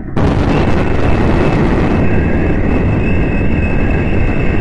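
Cartoon spaceship engine sound effect: a loud, steady rushing noise that cuts in sharply just after the start, with a thin high whine running through it.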